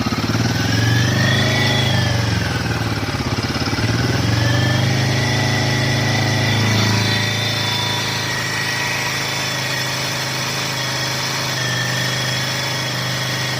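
Royal Enfield Himalayan 450's single-cylinder engine held at about 3,000 rpm, the revs wavering a little. It has a tick from the cylinder head in place of the usual thump, which the owner takes for an engine-head fault and the service centre for a possible valve-clearance or magneto issue.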